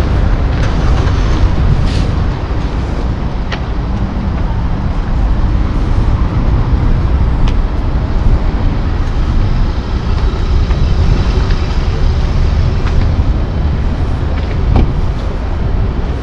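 Loud, low, gusting rumble of wind buffeting the microphone, over car and traffic noise in an open parking lot.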